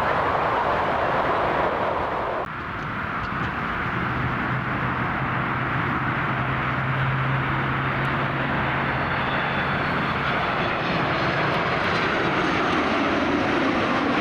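Airliner engine noise, a steady broad rush that changes abruptly about two and a half seconds in, with a low steady hum joining for several seconds in the middle.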